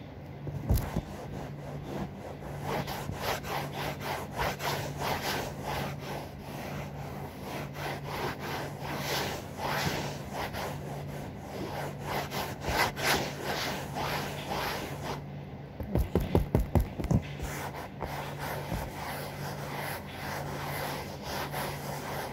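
Cloth scrubbing back and forth on the sofa's upholstery in repeated strokes, rubbing toothpaste in to lift the grime. About two strokes a second, with a louder, quicker run of strokes about two-thirds of the way through, over a faint steady hum.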